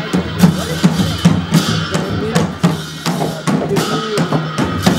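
Group of large double-headed barrel drums beaten in a procession, a repeated rhythm of about three strokes a second.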